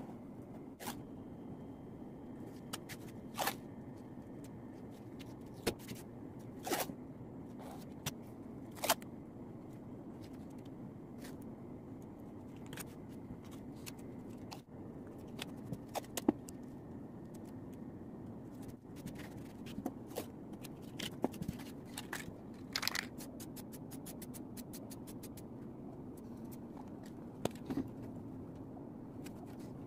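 Scattered scrapes, clicks and crackles of masking tape being pulled off the roll, torn and pressed onto a wall, over a steady low hum, with a quick run of clicks about three quarters of the way through.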